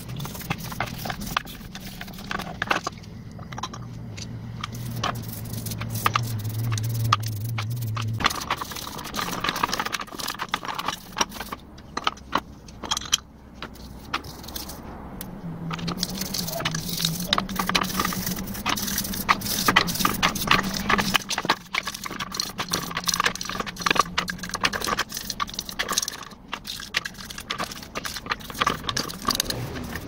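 A brush scrubbing a demolition hammer's metal housing in a basin of kerosene, with rapid clinking and scraping of metal parts and pliers. A low steady hum runs underneath for the first third and again in the middle.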